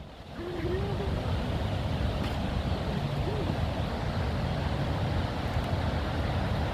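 Waterfall rushing steadily, fading in over the first half-second.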